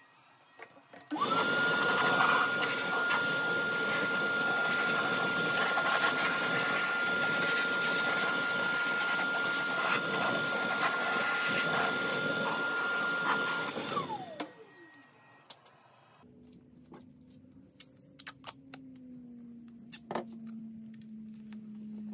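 Shop vacuum switched on about a second in, running steadily with a high whine as its hose sucks dust and debris out of the wire-brushed bark voids of a wooden burl, then switched off and winding down with a falling whine. Softer scattered clicks follow.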